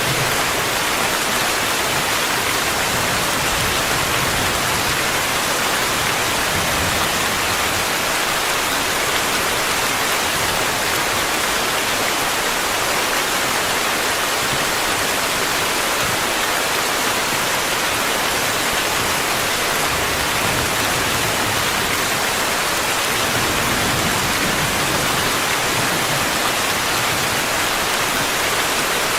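Steady rainfall, an even, unbroken hiss.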